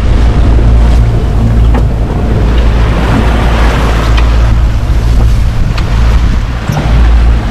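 Wind buffeting the microphone and waves rushing along the hull of a sailing yacht under way, over a steady low drone from its inboard engine, which is running while the boat motors against the current.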